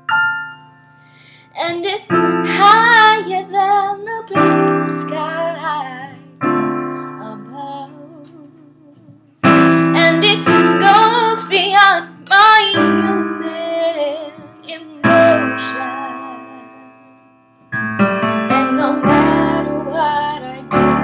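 A woman singing a slow gospel song with piano accompaniment: sustained piano chords under her sung phrases, with short pauses between phrases.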